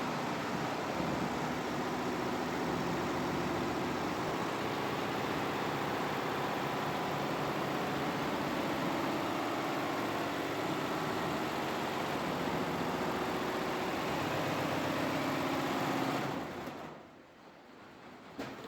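Multi-head computerized embroidery machine running, a steady rapid clatter of its needle heads. Near the end the sound winds down to a much lower level, and there is one sharp click just before the end.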